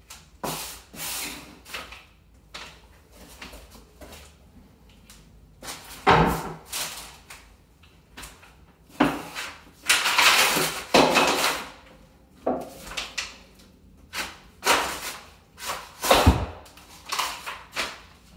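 A cast iron radiator being levered with a pry bar on wooden blocks and boards: irregular scraping, creaking and knocking of wood and metal. Two heavy thuds, about six seconds in and near the end, and a longer scrape about ten seconds in.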